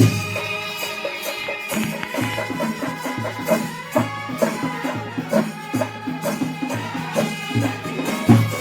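Band music with pitched melody lines over a steady, regular drumbeat.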